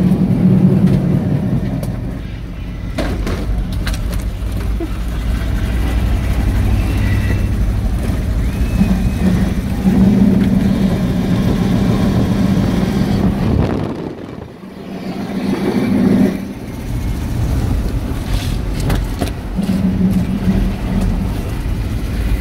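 A work truck's engine running hard, heard from inside the cab as it races around the track. The engine revs up and down, eases off briefly about two-thirds of the way through, then picks up again.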